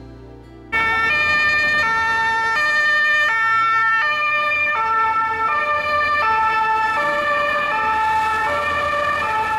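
Police van's two-tone siren, swapping between a high and a low note about every 0.7 seconds. It cuts in suddenly about a second in.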